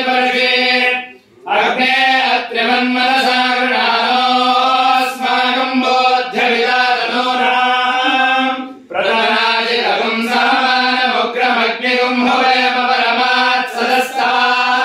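Sanskrit Vedic hymn chanted in unison by voices on a nearly steady pitch, with two short breaks for breath, about a second in and near nine seconds.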